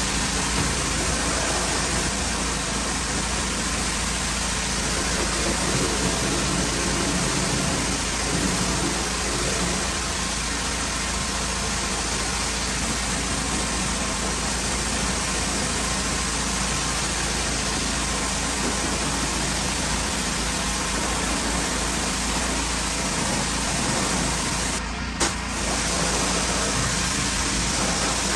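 Pressure washer running steadily, its water jet spraying against a painted soffit, with a constant low engine-like hum under the hiss of the spray. Near the end the sound breaks off for a moment with a click, then carries on.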